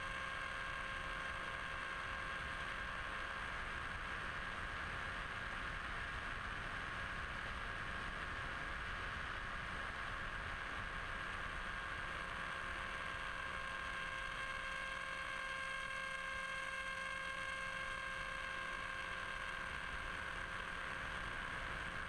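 Blitz RC Super Skysurfer model plane in flight, heard from its onboard camera: the electric motor and propeller hum steadily at one pitch over a constant rush of wind noise.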